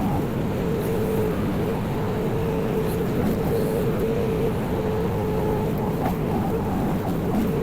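Kymron mini excavator's 14-horsepower Briggs & Stratton engine running steadily, with a steady whine over the rumble.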